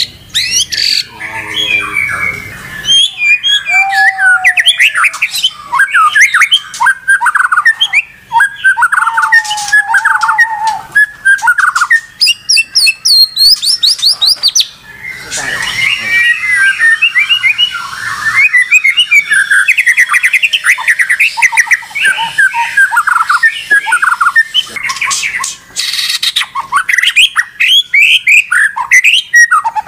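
White-rumped shama singing nonstop in full voice: a rapid, varied stream of loud whistled notes, quick glides and trills, broken by a few rougher, rasping stretches and short pauses.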